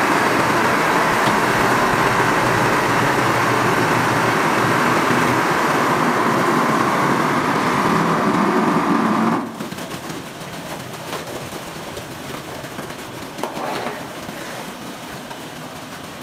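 Two automatic wall-plastering machines working, their motors making a loud, steady mechanical noise as the carriages climb the masts. About nine seconds in, the noise cuts off suddenly, leaving a much quieter running sound.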